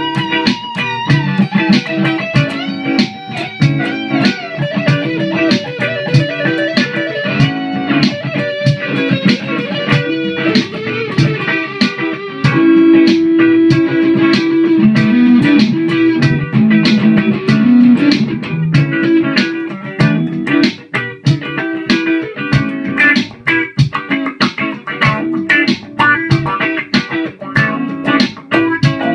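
Gibson Les Paul-style electric guitar played solo in improvised single-note lead lines. It opens on a held high note, steps down through slower phrases, holds one loud lower note about halfway, then moves into quick picked runs.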